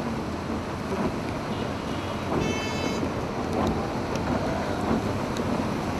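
Steady roar of a swollen, muddy flood torrent rushing past. A brief high-pitched tone sounds about halfway through.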